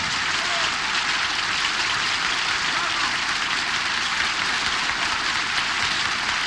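Theatre audience applauding at the end of a song: a dense, even clatter of many hands clapping at a steady level.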